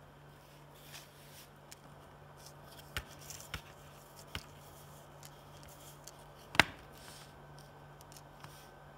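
Metal tweezers clicking and tapping as they handle a small SOIC-8 chip on a printed circuit board: a few scattered light clicks and one sharper click about two-thirds of the way in, over a steady low hum.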